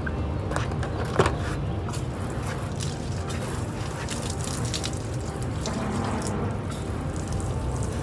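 Garden hose spray nozzle rinsing a pickup truck's body, water spattering off the paint and dripping, with scattered small splashes and clicks over a steady hiss.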